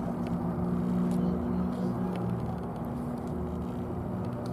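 Steady engine drone with a few held pitches, over a low background murmur and scattered faint clicks.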